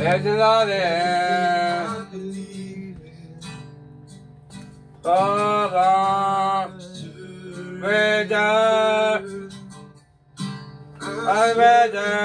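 A man singing a worship song in phrases over a strummed acoustic guitar, heard through a video call played on a TV.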